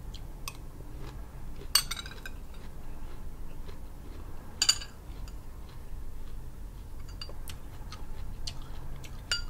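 Metal spoon clinking against a small glass bowl of pomegranate seeds: two sharp ringing clinks, about two seconds in and again about three seconds later, and a third near the end, with soft small clicks between.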